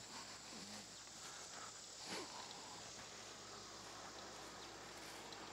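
Faint steady insect chirring in quiet outdoor background, with one soft knock about two seconds in.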